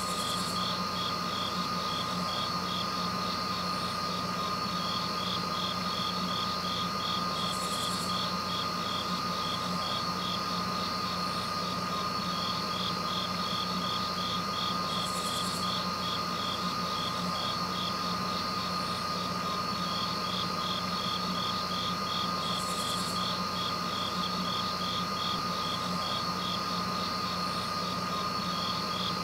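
Insects trilling in a fast, even pulsing rhythm over a constant low hum, with a short higher buzz about every seven to eight seconds.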